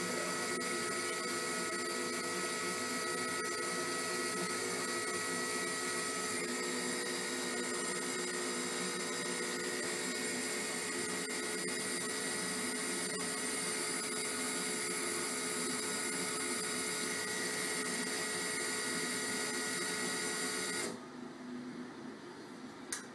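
ASNU fuel-injector testing and cleaning machine running a test: a steady electric whine with several held tones, cutting off suddenly about 21 seconds in, followed by a single sharp click near the end.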